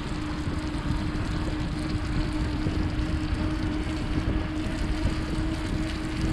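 Wind rushing over the microphone of a camera riding on a bicycle along a wet road, with tyre hiss and a steady hum underneath.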